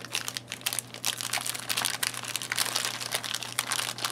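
Plastic wrapper of a packet of oat biscuits crinkling and crackling as it is worked open by hand with a folding knife, in a dense irregular run of crackles.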